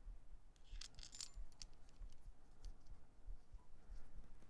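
Faint clicks and light metallic clinks of small baitcaster reel parts being handled during reassembly, mostly a cluster between about half a second and a second and a half in, then a few scattered ticks.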